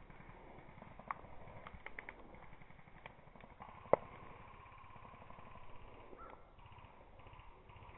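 Scattered faint airsoft gun shots, with one sharper snap about four seconds in.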